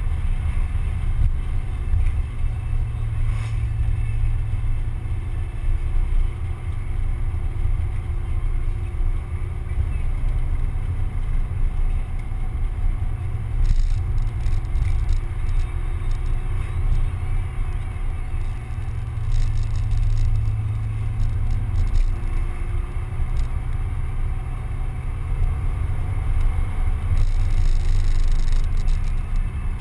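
Mazda Miata driving along, a steady low rumble of wind and road noise over the four-cylinder engine, whose note rises and falls slightly.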